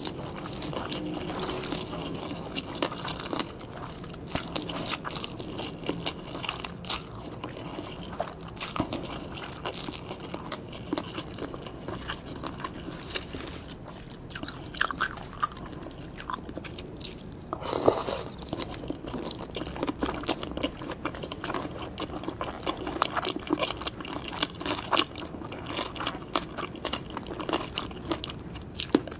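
Close-miked eating of a green papaya salad with raw salmon, rice noodles and raw vegetables: crisp crunching bites and wet chewing, with many small crackling clicks throughout and one louder crunch about 18 seconds in.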